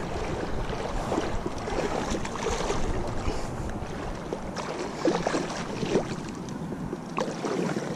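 Water splashing and sloshing as a hooked Chinook salmon thrashes at the surface in shallow river water, with a few sharper splashes about five and six seconds in.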